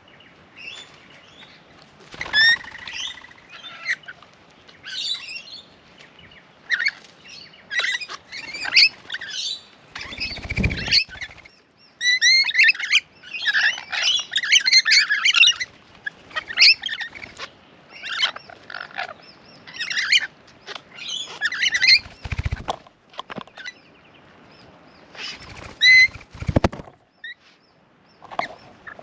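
A flock of rainbow lorikeets chattering and screeching in short, rapid calls. A few brief low flurries break in, about two seconds in, around the middle, and twice near the end.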